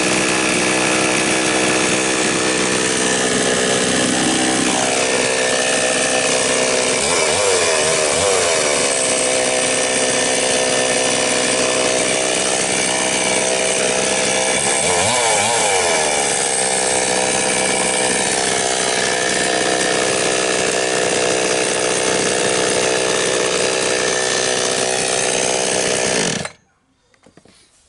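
Chinese 5200 two-stroke chainsaw engine running at a steady speed after maintenance, its note wavering briefly twice. About 26 seconds in it is switched off and stops abruptly.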